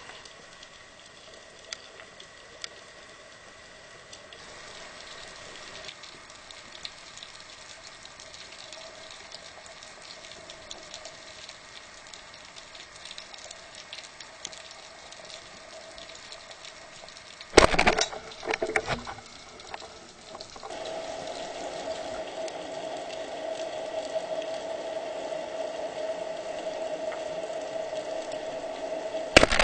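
Underwater hiss with scattered faint crackles, broken by a loud clatter about two-thirds of the way through. A steady hum follows, and a sharp bang at the very end is the speargun firing.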